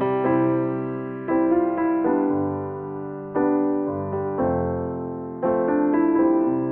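Background piano music: slow, sustained chords struck roughly once a second, each fading before the next.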